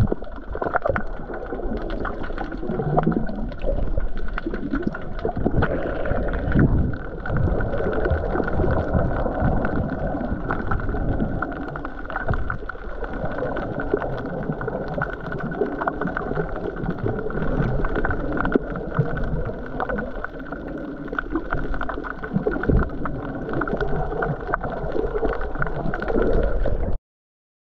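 Muffled water sloshing and gurgling with small crackles, heard underwater through a camera's housing while snorkeling. It cuts off suddenly near the end.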